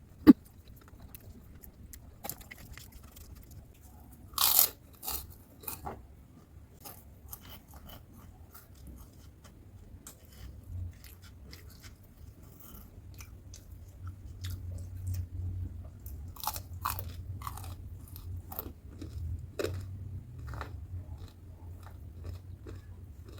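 A person biting and chewing crunchy food close to the microphone: loud crisp crunches about four seconds in and again after about sixteen seconds, with small crackles and a low chewing rumble between them. A single sharp click just after the start is the loudest sound.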